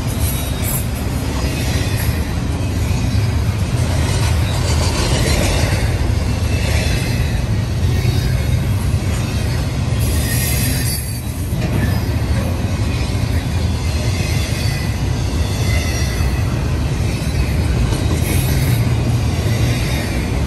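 Double-stack intermodal well cars rolling past at trackside: a steady, loud rumble of steel wheels on rail, with thin high wheel squeal coming and going over it.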